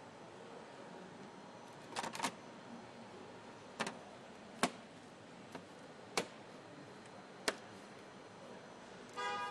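Scattered sharp clicks and knocks of plastic trim as a car's front grille is pressed into place, over a steady factory background hiss. A short buzz sounds near the end.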